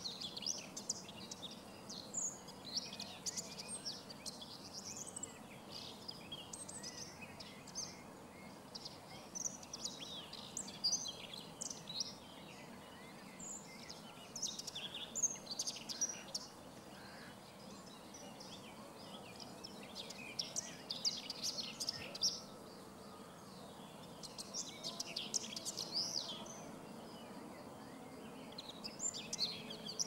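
Common whitethroat (Sylvia communis) singing, short song phrases repeated every few seconds.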